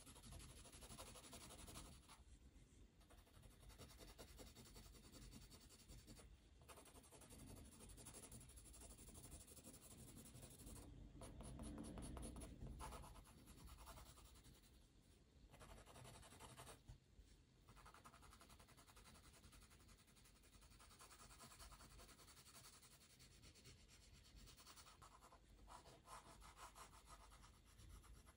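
Faint pencil strokes on paper while sketching, in stretches with brief pauses between them.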